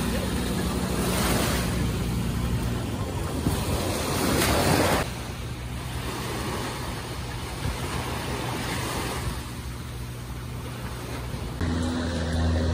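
Surf washing onto a beach, with wind on the microphone, swelling louder twice in the first five seconds. The sound changes abruptly about five seconds in and again near the end, when a low hum comes in.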